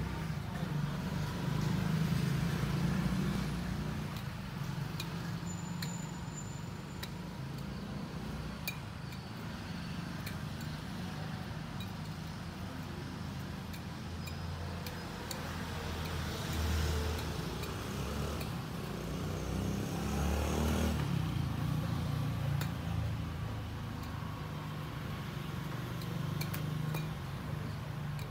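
A steady low hum that swells in the middle, with scattered light clicks and clinks as flair bottles are tossed, caught and handled.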